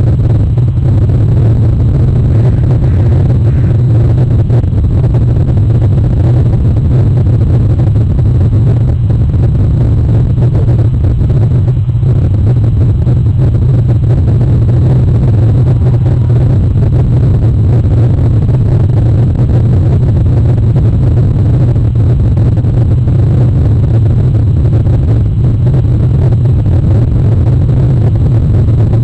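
A loud, steady low rumble that does not change.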